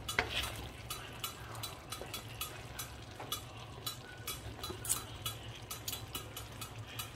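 Pork belly and potatoes for adobo sizzling in a pan, with irregular crackling pops several times a second over a low steady hum.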